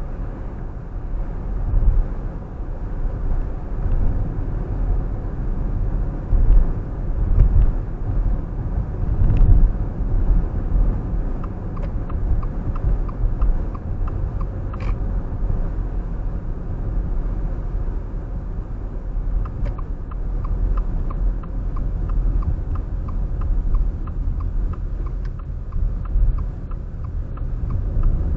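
Car driving, with a steady low road and engine rumble. Twice a quick, even ticking of the turn signal runs for several seconds, the longer stretch in the second half.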